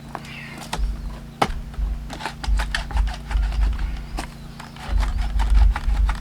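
A larch log under a splitting tool cracking and snapping, a fast run of small clicks with two sharper knocks, about a second and a half in and about four seconds in, as tough, sappy fibres tear apart, over bursts of low rumble.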